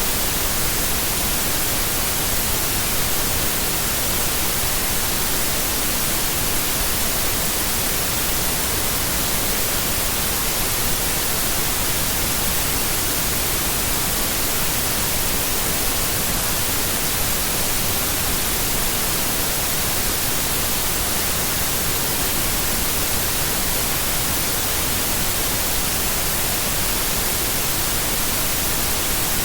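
Steady white noise: an even hiss spread across the whole range, strongest in the highs, running on without a break.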